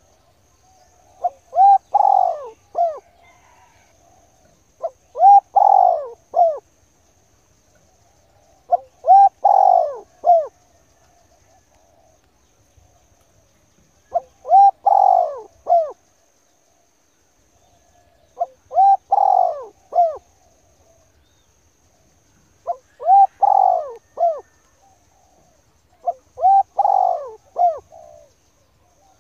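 A dove cooing: about seven phrases, each a quick run of several mid-pitched coo notes, repeated roughly every four seconds.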